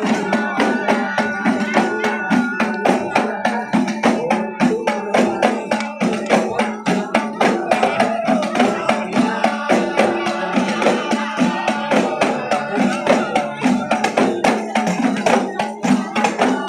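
Frame drums (rebana/terbangan) of a dikir group beaten in a fast, steady rhythm, with voices over the drumming.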